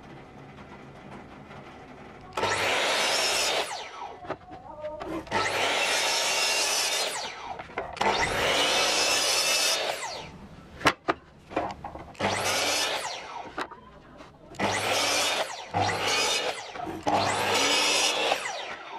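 Compound miter saw cutting MDF board in a series of about seven short cuts, each a second or two of blade noise with quieter gaps between. Two sharp clicks come about halfway through.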